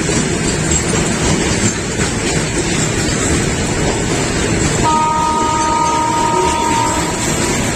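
Train running along the track with a steady loud rumble. About five seconds in, a two-tone train horn sounds for roughly two seconds.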